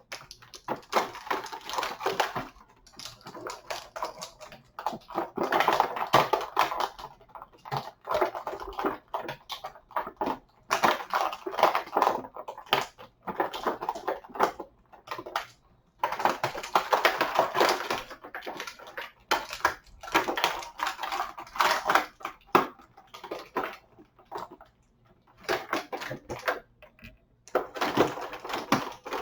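Action-figure packaging being handled and pulled apart: stiff plastic blister tray and cardboard crinkling and crackling. The noise comes in stretches of a few seconds with short pauses between them.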